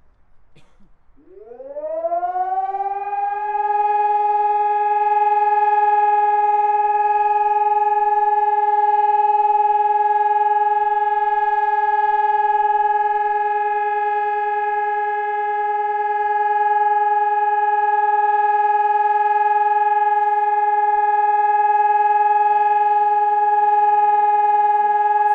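Civil-defence siren winding up, its pitch rising over about three seconds, then holding one steady, loud tone. An unbroken steady tone like this is the German all-clear (Entwarnung) signal.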